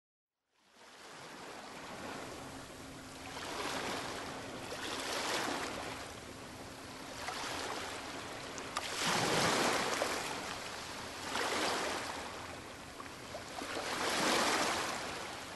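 Sea surf washing in and out: a hissing rush of water that swells and fades every two to three seconds, loudest about two-thirds of the way through and again near the end.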